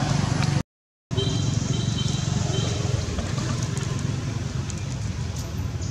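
Steady low outdoor rumble with no distinct event, broken by a brief silent gap about half a second in. Faint thin high notes come briefly after the gap.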